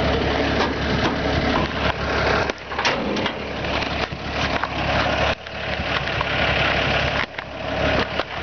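1957 Chevy 3100 pickup's inline-six engine idling steadily, under loud rustling and knocking from the camera being handled as the hood is raised.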